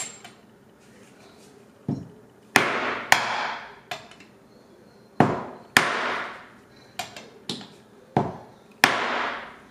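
Mallet striking a steel socket used as a driver to press a bearing into a caster housing. About ten taps, irregularly spaced and some in quick pairs, the louder ones leaving a short metallic ring.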